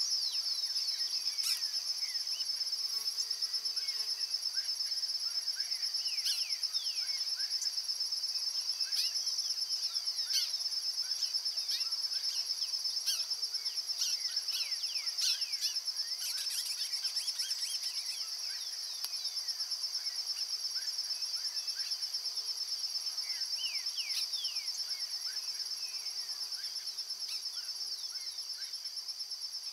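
A steady, high-pitched insect trill that pulses finely and never breaks, with many short falling bird chirps scattered over it.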